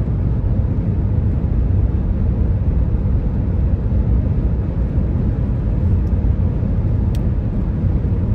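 Steady low rumble of road and engine noise inside a car cabin while driving at highway speed.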